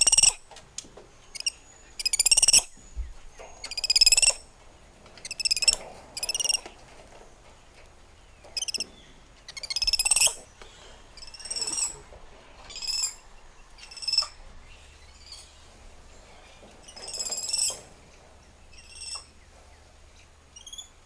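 Spider monkey calls: a series of high-pitched calls, each about half a second long, repeated every second or two, louder in the first half.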